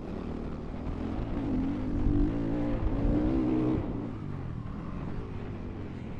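Honda CRF450R's single-cylinder four-stroke engine running under throttle while riding, getting louder from about a second in, held hard for a couple of seconds, then easing off just before the four-second mark.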